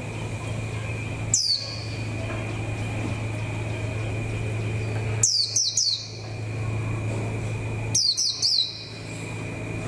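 White-eye chirping from its cage: one sharp, high, falling call, then two quick runs of about four falling notes each, over a steady low hum.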